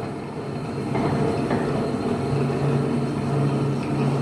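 Electric meat grinder running with a steady low motor hum while sucuk meat dough is pressed down into its feed throat; the hum's low note grows stronger and uneven from about halfway through.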